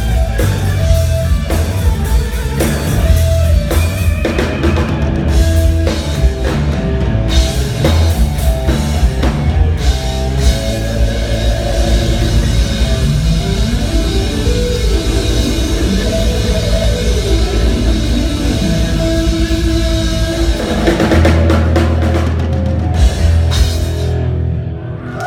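Live instrumental rock jam: a drum kit pounding under sustained electric guitar lines with bent notes in the middle, the band winding down near the end.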